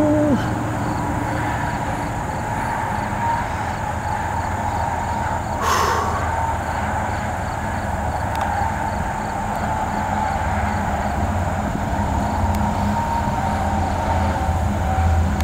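CSX GE ES44AC diesel locomotive approaching at the head of a loaded coal train, its engine making a steady low rumble that grows louder near the end, with a faint steady whine above it. A horn note cuts off right at the start, and a brief rush of noise comes about six seconds in.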